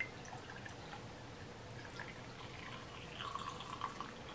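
Vodka poured from a bottle into a tall glass of ice: a faint, steady trickle of liquid with a few small ticks, a little louder about three seconds in.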